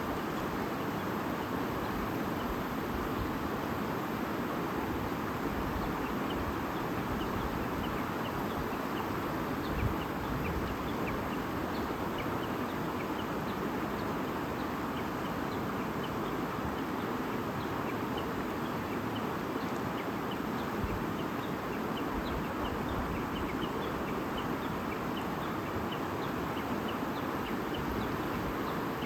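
A stream babbling steadily, with short high bird chirps scattered throughout.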